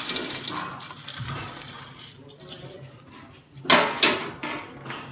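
A hand mixing coarsely crushed fox nuts, raisins, figs and fried edible gum in a steel plate: a dry rustling as the pieces are stirred against the metal, with two louder rustles less than half a second apart about two-thirds of the way through.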